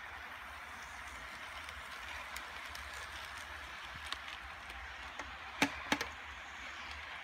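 HO scale model freight train running past on its track with a steady whirring, and a few sharp clicks, the loudest two close together about five and a half to six seconds in.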